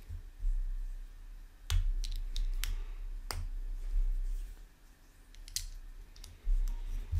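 Plastic Lego bricks being handled and pressed together: scattered sharp clicks, several close together about two seconds in, with dull bumps of handling on the table.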